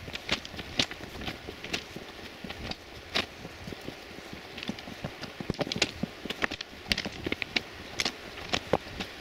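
Footsteps crunching on railway track ballast gravel, an irregular series of sharp crunches as someone walks along the track.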